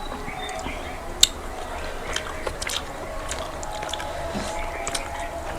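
Close-miked eating sounds: chewing and small wet mouth clicks, the sharpest click about a second in, over a faint steady hum.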